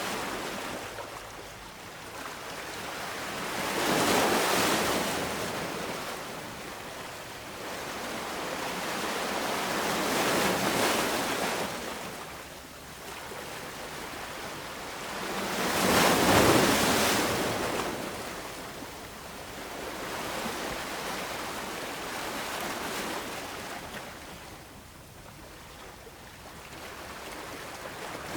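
Ocean waves breaking and washing on shore, the surf rising and falling in swells every several seconds, the loudest about sixteen seconds in.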